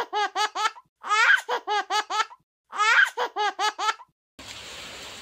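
A child's high-pitched laugh, one long 'ha' followed by quick short pulses, played as a looped sound clip that comes round three times, identical each time, over dead silence. About four seconds in it stops, and a steady outdoor background hiss takes over.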